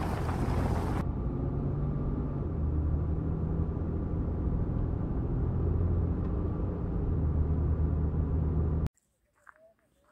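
Wind buffeting the microphone for about a second, then a steady low rumble of a vehicle on the move, engine and road noise, which cuts off abruptly near the end.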